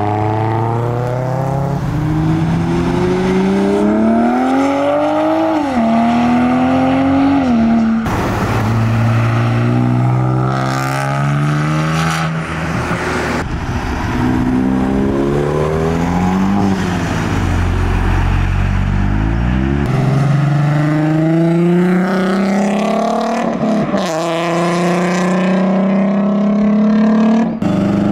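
Modified cars accelerating away one after another, engine and exhaust note rising in pitch, dropping at gear changes and rising again. The sound changes abruptly several times as one car gives way to the next.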